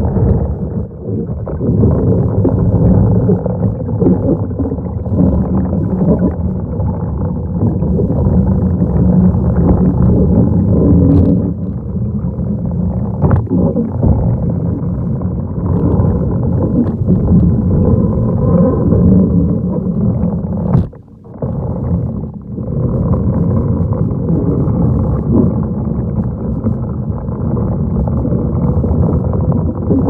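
Continuous low, muffled rumble of water heard underwater as a manual pool vacuum head with its suction hose is worked across the pool floor, with a few faint clicks and a brief dip in level about two-thirds of the way through.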